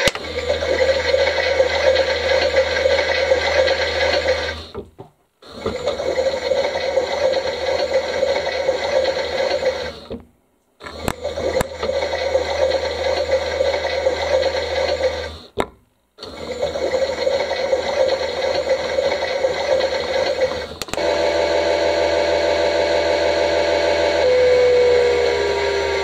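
Bosch idos toy washing machine running its wash cycle, its small motor turning the drum in runs of about five seconds with brief stops in between. About 21 seconds in the sound changes to a different steady tone, which falls in pitch near the end.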